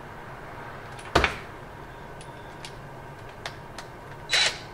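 Handling of a cordless impact driver and hand tools on a workbench: a sharp knock about a second in, a few light clicks, then a brief scraping rustle near the end.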